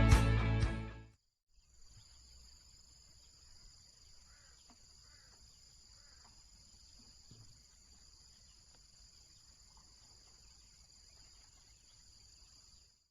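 Background music fades out in the first second, leaving faint outdoor ambience: a steady high-pitched insect drone with a few faint bird chirps.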